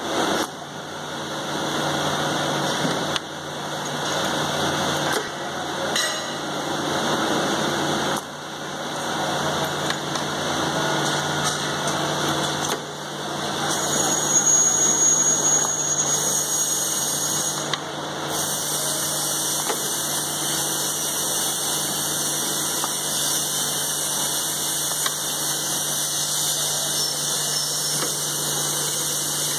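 Mech-India MiniCobum centerless OD burnishing machine running as stepped shafts are burnished: a steady low hum under a wider mechanical noise, its level shifting every few seconds.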